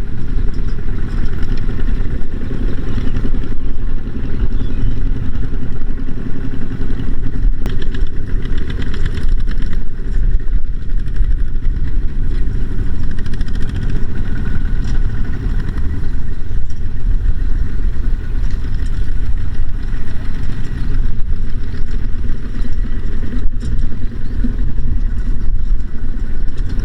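A farm machine's engine running steadily close by, without changing speed.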